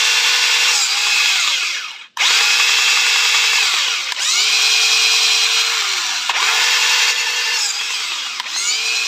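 REX electric copper-pipe reamer running free, its motor giving a steady high whine. It is switched on and off about four times in runs of about two seconds, each rising as it spins up and falling away as it stops. The tool runs well.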